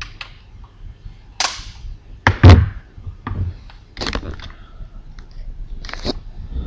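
A rechargeable work light being handled on a tabletop: a string of sharp plastic clicks and knocks. The loudest is a close double knock with a heavy thud about two and a half seconds in.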